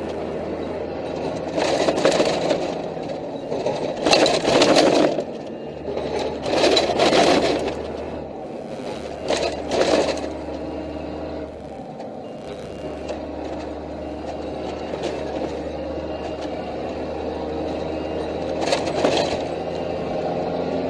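Military patrol vehicle driving over rough ground, heard from its open gun turret: a steady engine drone, with the turret gear rattling and several louder jolts, the biggest in the first ten seconds and one more near the end.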